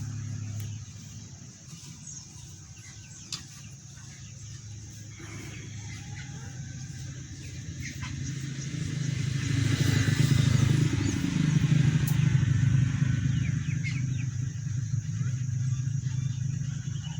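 Two-stroke chainsaw engine idling with a steady low hum. It grows louder for a few seconds in the middle, then eases back.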